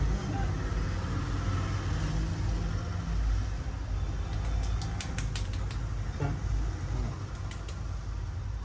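Steady low rumble of road vehicles, with a quick run of sharp clicks about halfway through and a few more near the end.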